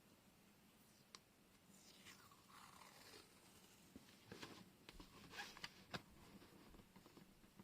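Faint handling noises of washi tape and paper. A short rasp falls in pitch, then a cluster of small clicks and scrapes comes about four to six seconds in.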